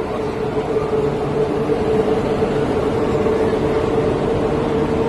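Running noise inside a public-transport vehicle: a steady hum with one unchanging whine over a low rumble.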